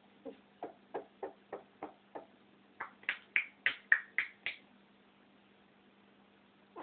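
African grey parrot making a quick run of short clucking knocks, about three a second: seven lower ones, then seven higher and louder ones.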